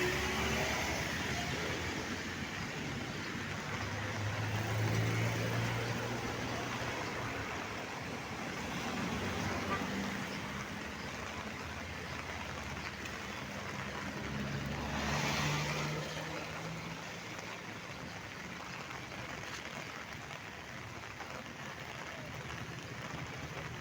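Road traffic on a wet street in heavy rain: a steady hiss with low engine hum, swelling as vehicles pass about five and fifteen seconds in.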